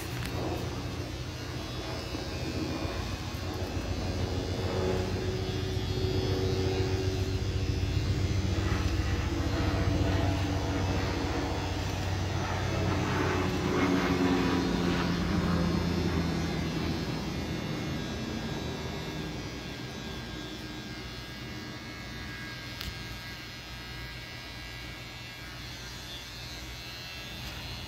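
Electric hair clippers buzzing steadily, their pitch shifting slightly as they cut. Louder through the first half, then quieter toward the end.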